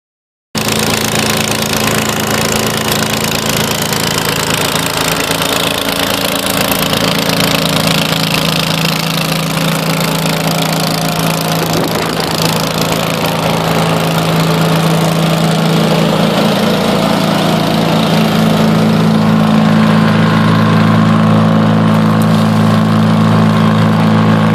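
Vermeer BC625A wood chipper running with no wood being fed: a steady engine drone with a broad hiss over it, growing slightly louder in the later part.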